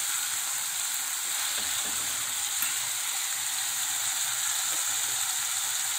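Chopped vegetables sizzling in hot oil in an aluminium kadhai: a steady hiss, with a few faint ticks.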